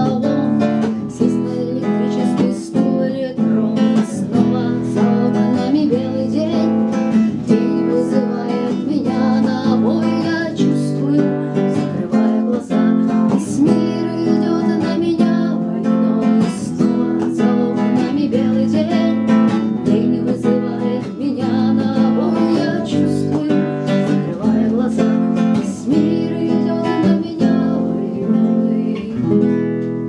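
Nylon-string classical guitar strummed, chords played in a steady rhythm.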